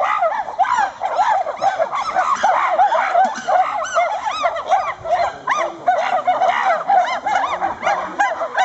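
A dense chorus of many animals calling at once: short, overlapping calls that rise and fall in pitch, several a second.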